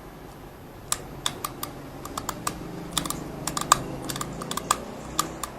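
Sharp, irregular clicks from a Vespa's gear-change mechanism being worked through the gears by hand, after its selector was fitted with a new, stiffer spring. The clicks come several a second at times.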